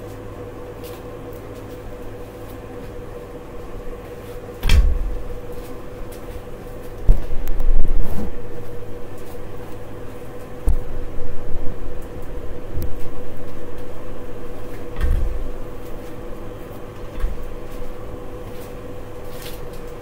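Irregular knocks and thumps of a mountain-bike front wheel being taken off and handled, over a steady hum.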